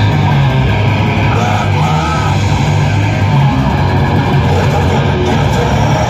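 Live metal band playing loud: distorted electric guitar over bass and drums, a dense, unbroken wall of sound.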